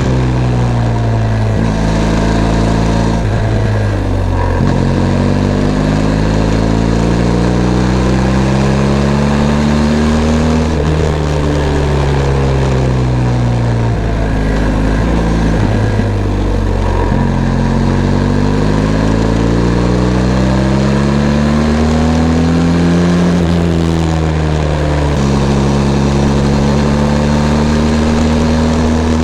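Benelli TRK 502 X parallel-twin engine running under way: revs climb in long pulls, fall away twice, and hold steady near the end, with sudden jumps in pitch about four and seventeen seconds in.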